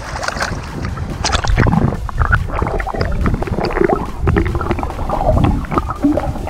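Water sloshing and splashing against an action camera as it dips below the surface of shallow sea water, heard as muffled underwater rumbling and gurgling with scattered small splashes and knocks.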